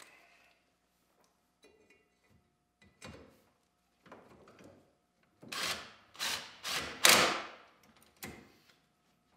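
Socket wrench on a long extension tightening the bolt at the base of a snowmobile's pogo-stick ski leg. A few light metal knocks come first, then four quick bursts of ratchet clicking between about five and a half and seven and a half seconds in, the last the loudest, and one shorter burst about a second later.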